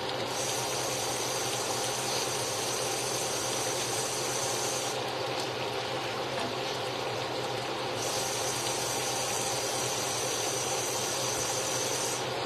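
Kitchen tap running steadily into the sink, a constant rushing with a low steady hum beneath it.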